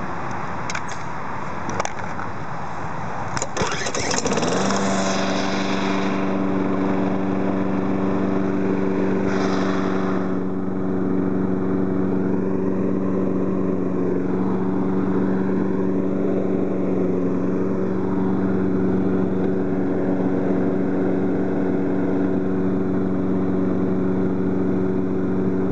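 Craftsman 5 hp self-propelled lawn mower's engine catching about four seconds in, rising quickly to speed and then running steadily at one even pitch.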